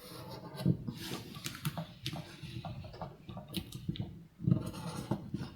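Felt-tip marker drawing short lines on fabric and cotton batting: a run of light, irregular scratchy strokes and taps.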